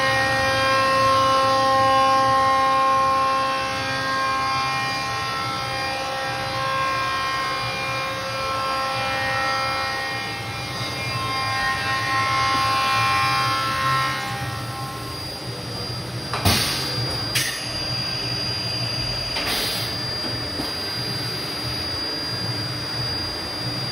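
Kent KMV-22P portal milling machine running, its drive giving off several whining tones that shift every few seconds. In the second half it settles to a steadier hum with a thin high whine, broken by two short noisy bursts.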